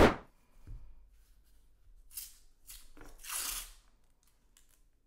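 A loud sharp hit, then paper half-dollar coin-roll wrappers being torn open in a few short rips and rustles about two to four seconds in.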